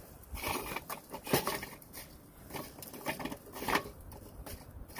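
Lit charcoal briquettes clinking and scraping against each other and the metal charcoal bowl of a bullet smoker as they are poked and spread with a wooden stick. Irregular small clicks and rattles, with a few sharper knocks about a second and a half in and near four seconds in.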